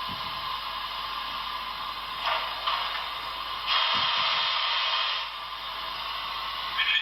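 HO scale model steam locomotive's Paragon 4 sound decoder playing steam hiss through its small onboard speaker, steady with louder surges about two seconds in and again from about four to five seconds.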